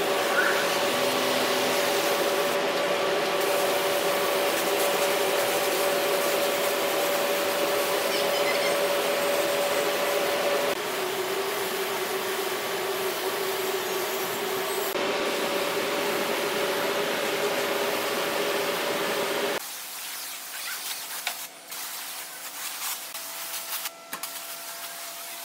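A handheld power tool runs steadily with a hiss and a hum, its pitch shifting slightly a couple of times. About twenty seconds in it stops, leaving quieter handling noise with a few clicks and knocks.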